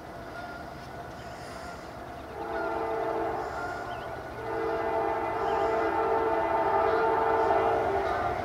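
Locomotive air horn sounding a chord of several notes: one blast starting about two seconds in, then a longer blast from about halfway through to near the end, over the low rumble of the approaching train.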